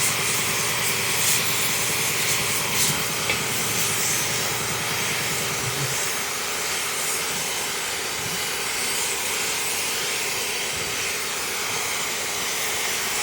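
Steady hiss of air being blown into a two-stroke exhaust silencer that is badly clogged with unburnt oil and carbon, little getting through to the far end.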